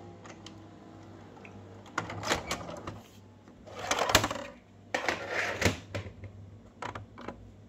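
Panasonic NV-SD35 VHS video recorder's tape mechanism whirring faintly, then a run of mechanical clicks and plastic clunks as a VHS cassette is handled at the loading slot, the loudest about four seconds in and again about a second and a half later.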